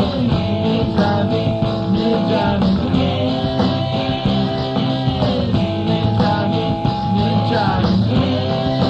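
Rock band playing live, led by guitar, in a passage of the song without clear lyrics.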